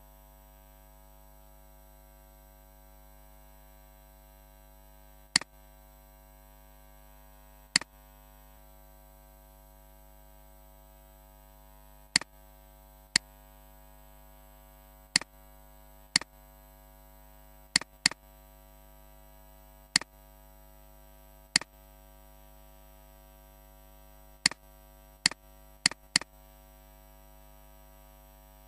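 Computer mouse clicks: about fourteen sharp single clicks at irregular intervals, some in quick pairs near the end, over a steady electrical hum.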